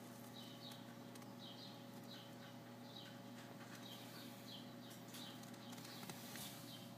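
Short high chirps repeating about twice a second, over a faint steady hum.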